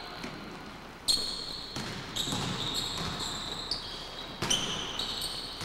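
Basketball bouncing on a hardwood gym floor: a few sharp bounces, each with a ringing echo.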